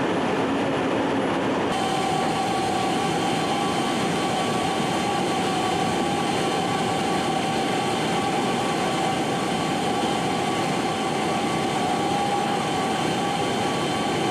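Steady engine drone and rushing noise inside a military transport aircraft's cargo hold. About two seconds in the sound shifts abruptly and a steady high whine comes in over the drone.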